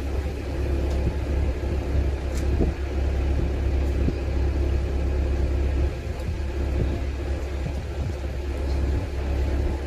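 Canal tour boat's engine running with a steady low rumble and a faint hum, dipping briefly about three seconds in and again near six seconds.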